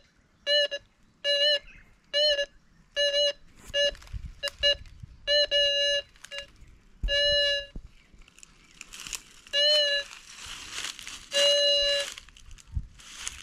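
A metal detector beeping over a target: short beeps of one steady pitch about once a second, with a few held longer, the sign of a strong signal. From about eight seconds in, dry leaves rustle and crunch under the coil and feet.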